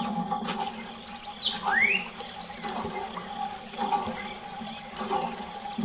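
Water trickling and splashing from a thin hose into the small plastic tank of a toy water tanker, fed by a miniature hand pump, with a few light clicks. A short rising chirp sounds about two seconds in.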